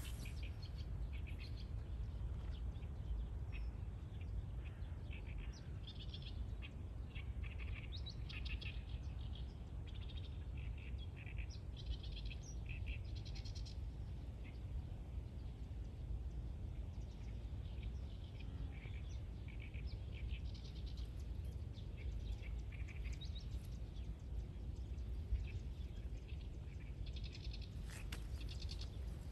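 Small birds chirping and calling in short, scattered bursts of high notes, over a steady low rumble.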